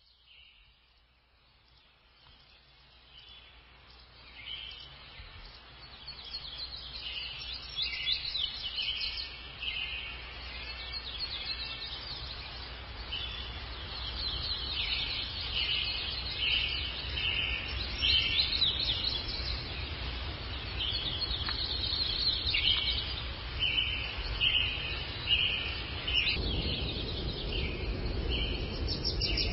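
Songbirds singing, a chorus of short, repeated high chirping notes, fading in over the first few seconds. A steady low rumble runs underneath.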